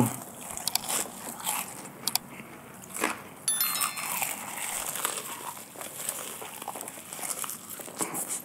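Close-miked biting and chewing of crispy KFC fried chicken: many short, sharp crunches of the breaded coating at an irregular pace.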